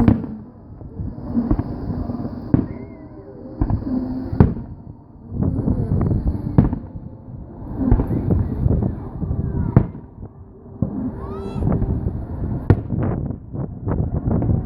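Aerial fireworks going off in a rapid series of bangs and crackles, with a few whistling glides between the reports.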